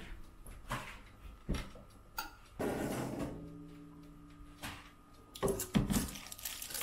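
Hard household objects being knocked and set down, a string of separate knocks and clatters. One knock about two and a half seconds in leaves a ringing tone that fades over about a second and a half, and a quick run of clatters comes near the end.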